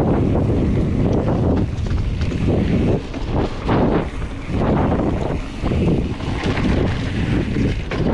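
Wind buffeting the microphone of a camera on a mountain bike descending at speed, surging and easing in gusts, over the rumble of knobby tyres on a dirt and gravel trail.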